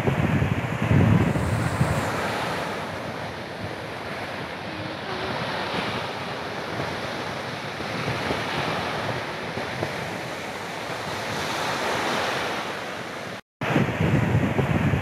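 Sea waves breaking and washing up a sandy beach, with wind buffeting the microphone in low rumbles. The rumbles are strongest in the first couple of seconds and again after a short dropout near the end.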